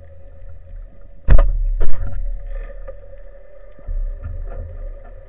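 Underwater sound from a camera on a speargun just below a choppy surface: a steady hum with faint higher tones over it, and loud dull thumps against the housing a little over a second in, again half a second later, and a smaller one near four seconds.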